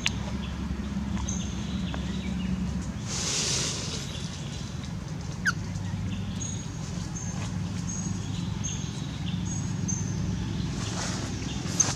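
Outdoor forest ambience: a steady low hum under faint, high chirps that repeat evenly through the second half, with a brief rustle about three seconds in and a single short squeak a little after.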